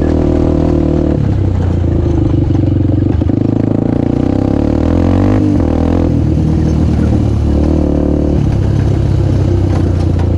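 Honda CRF250X dirt bike's single-cylinder four-stroke engine running close up as it is ridden along a gravel trail, its note rising and falling several times with the throttle.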